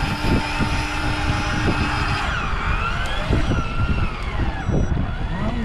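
Electric fishing reel's motor whining as it winds line up from deep water. The whine holds steady at first, then about two seconds in its pitch sags and wavers up and down, over a low rumble of boat and wind.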